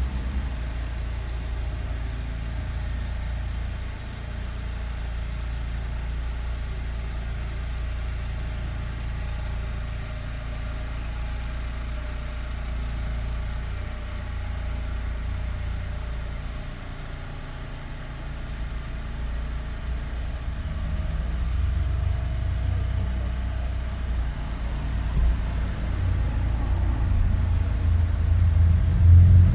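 Street traffic: a steady low rumble of cars on the road, dipping briefly about halfway through and then growing louder over the last ten seconds or so as traffic comes closer.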